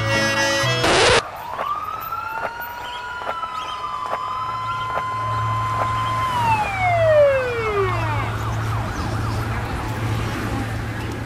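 Music breaks off about a second in. A wailing, siren-like tone follows over a steady low hum: it holds its pitch for a few seconds, then slides down and fades.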